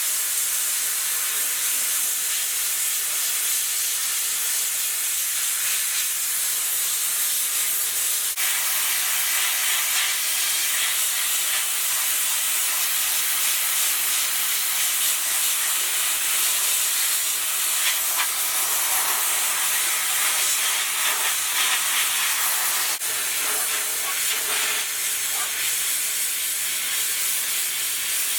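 A steady, loud hiss with no pitch, strongest in the high range, continuing without a break.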